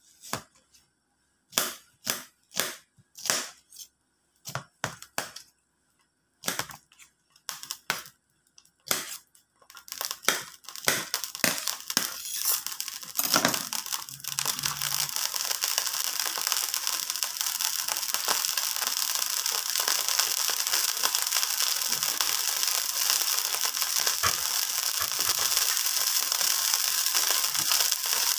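Oil heating in a wok over a gas flame: separate sharp pops and crackles for about the first ten seconds, then a steady sizzle that builds and keeps up to the end.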